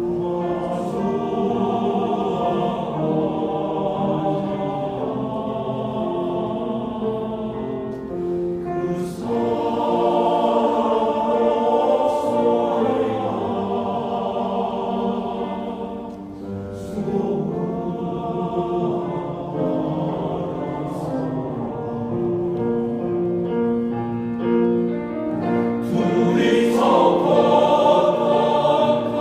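Men's choir singing in harmony, held notes in long phrases with brief breaths between them, growing louder near the end.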